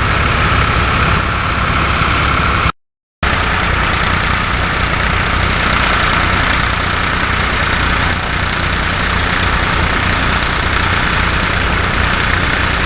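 Ford 4000 four-wheel-drive tractor engine running steadily, with a half-second dropout of total silence about three seconds in.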